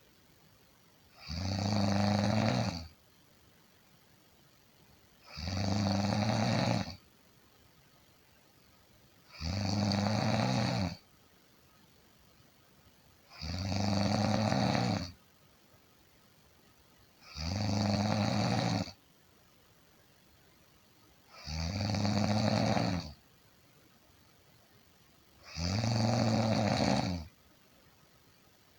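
Snoring: seven pitched snores at an even pace, one about every four seconds, each lasting about a second and a half, with quieter gaps between.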